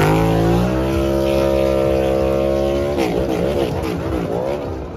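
NASCAR Cup Series race car's V8 engine revving hard during a victory burnout. The revs climb, hold steady for a couple of seconds, then surge rapidly up and down about three seconds in.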